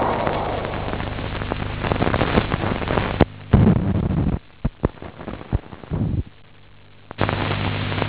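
Worn optical film soundtrack: steady hiss with a low mains-type hum. About three seconds in comes a sharp click and a short loud burst of noise, then a run of clicks and brief dropouts. The track falls to a faint hiss for about a second before the noise returns near the end.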